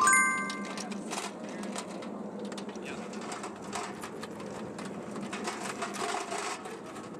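Linked .50 caliber machine-gun cartridges clinking and rattling as belts are lifted out of a metal ammo can, opening with a single ringing metallic clang.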